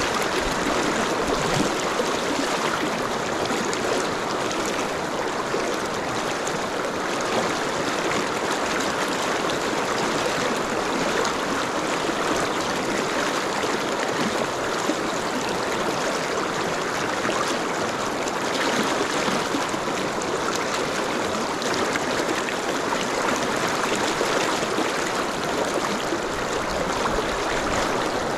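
Fast, shallow river rapids rushing steadily, an even, unbroken sound of running water.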